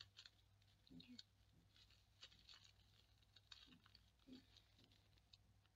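Faint crinkling and crackling of a small clear plastic zip bag being handled and pulled open, in scattered small crackles over a steady low hum.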